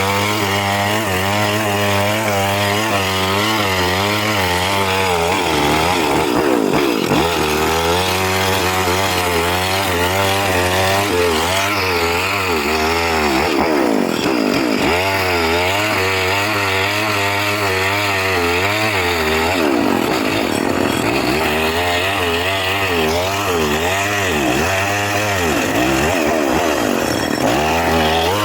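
Chainsaw engine running under load while cutting wood, its pitch wavering up and down continuously as the chain bites and the engine labours and recovers.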